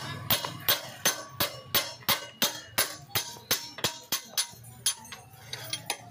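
Hammer striking a steel punch against a motorcycle's steering head to drive out the upper steering-bearing cup, a steady run of ringing metal blows about three a second that becomes fewer and lighter after about four and a half seconds.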